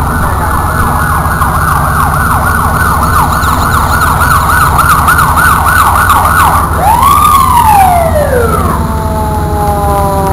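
Fire engine siren on a fast yelp, about three warbles a second, that switches about seven seconds in to one long wail rising and then winding down. Near the end a steady multi-tone horn blast sounds, over a constant low rumble.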